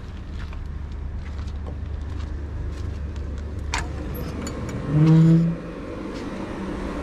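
Steady low rumble of a car engine running nearby. About five seconds in, a short loud pitched tone sounds for about half a second.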